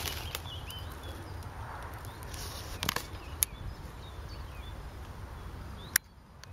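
Outdoor ambience: small birds chirping now and then over a low wind rumble on the microphone, with a few sharp clicks, the loudest near the end.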